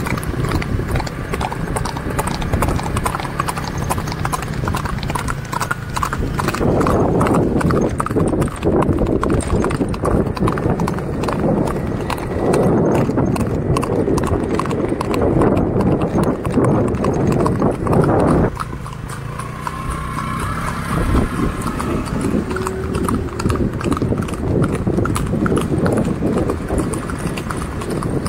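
Hooves of several horses clip-clopping on a paved path as they are ridden along in a group.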